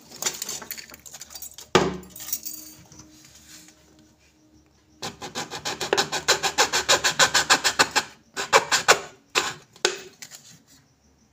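Hacksaw cutting through a thin plastic bottle in quick, even strokes, about seven a second for some three seconds, then a few single strokes. Before that, the bottle crackles and rubs as it is handled.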